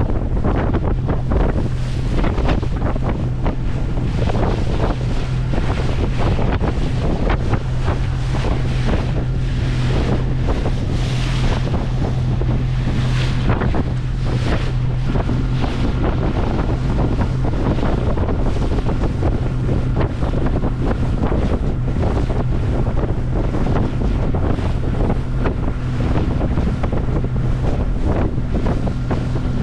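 Engine of a small open boat running steadily at speed, a constant low drone, with wind buffeting the microphone and water rushing and splashing along the hull.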